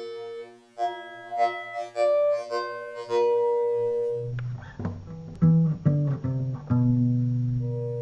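Music run through a granular pitch-shifting effect: a sequence of sustained, higher pitched notes over a low steady tone, then about four seconds in the pitch drops to lower, louder notes with sharper attacks.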